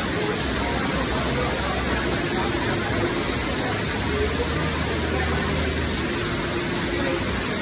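Heavy rain pouring down steadily: a dense, even hiss of rain and running water on the wet street and awning.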